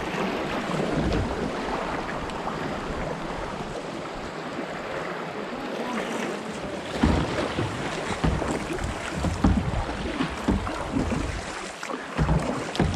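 Rushing creek floodwater washing around a kayak: a steady, even wash of water noise, joined by irregular low thumps from about seven seconds in.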